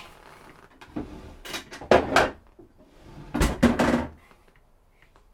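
Metal jewellery tools being handled and knocked against a workbench: two short bursts of knocks and clatter, one about two seconds in and another a little past three seconds.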